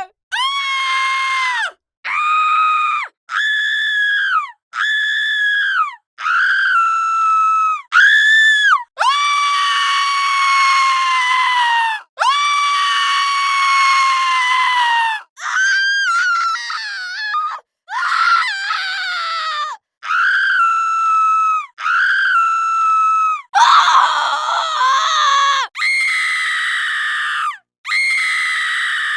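A rapid string of women's high-pitched screams, about fourteen in all, each lasting one to three seconds and often falling away in pitch at the end, cut one after another with sudden silent gaps between them.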